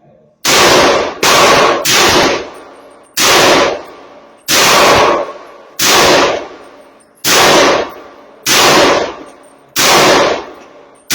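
A 16-inch AR-15 rifle in .300 Blackout firing 147-grain FMJ rounds semi-automatically: about nine loud shots, the first three in quick succession, then one roughly every 1.3 seconds. Each report trails off over about a second.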